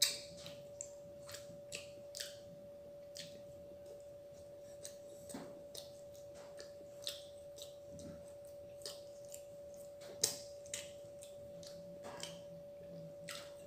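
A person chewing and crunching crisp fried food close to the microphone, in short irregular crunches and clicks. A faint steady whine runs under it.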